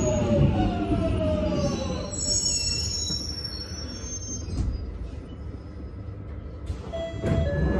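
London Underground train braking into a station: its whine falls steadily in pitch over the first couple of seconds and fades to a low rumble as the train comes to a stop, with faint high squeals partway through. A short tone sounds near the end.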